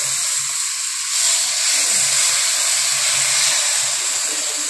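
Mutton cooking water poured into a hot steel kadai of fried mutton masala, hitting the hot oil with a steady sizzling hiss.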